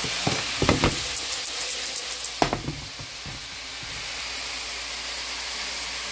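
Asparagus sizzling in hot oil in a nonstick frying pan, with a few knocks and scrapes of a spatula against the pan in the first two and a half seconds. After that it is a steady sizzle.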